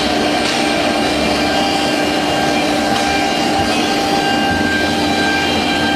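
CNC wood router running, a steady machine hum with a constant high whine from the spindle.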